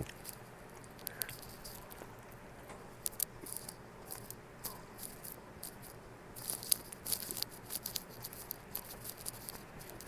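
Faint, scattered small clicks and light rustles from eating a fried chicken sandwich: chewing close to the microphone and handling the sandwich and its wrapper, busiest about six to eight seconds in.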